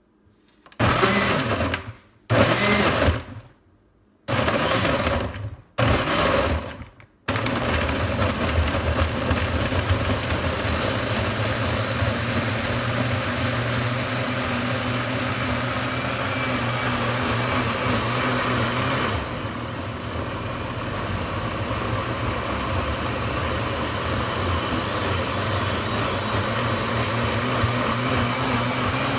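Calphalon ActiveSense blender on its automatic smoothie program, blending ice with kale, blueberries and carrots. It starts with four short pulses, then runs continuously; about two-thirds of the way through the sound becomes a little quieter and smoother.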